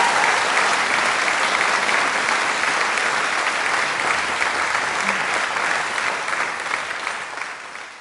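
A large audience applauding, a dense steady clapping that fades out near the end.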